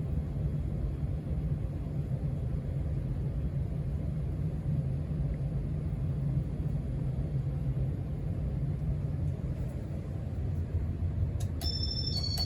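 Casablanca Stealth ceiling fan running steadily on speed 6, a low rumble of moving air and motor. A brief high chirp comes near the end.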